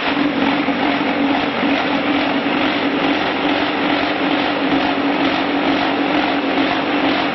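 QTJ4-25 automatic concrete block-making machine running: a steady, loud mechanical noise with a constant hum underneath, while pallets of fresh blocks move out on its conveyor.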